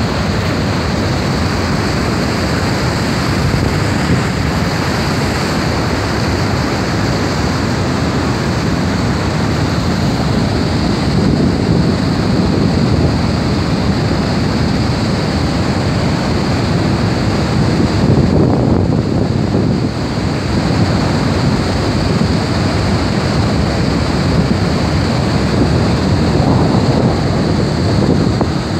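Niagara Falls pouring into the gorge: a loud, steady, dense rush of falling water, with wind buffeting the microphone.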